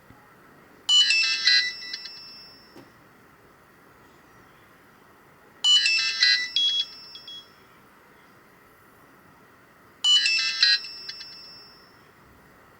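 Alcatel 1054D phone ringing with an Alcatel 2000X ringtone played on its MIDI synthesizer: three identical rings about four and a half seconds apart, each a quick cluster of bright high notes that fades out over a second or so, with faint hiss between rings.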